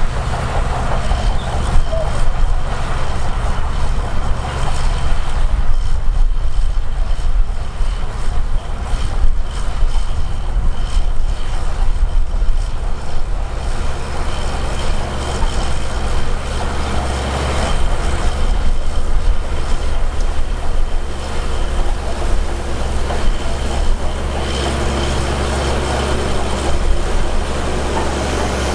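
Heavy diesel earthmoving machinery running under load: a steady deep engine drone with fluctuating mechanical noise and a faint, steady high whine.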